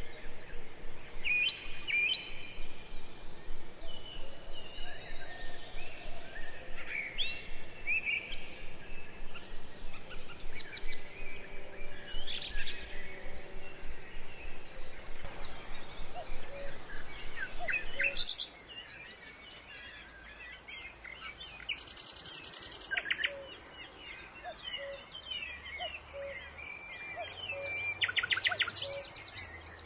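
Wild birds singing and calling, a mix of chirps, whistles and short glides over steady outdoor background noise. About eighteen seconds in, a quieter recording takes over, with two rapid trills and a soft low note that repeats at even spacing.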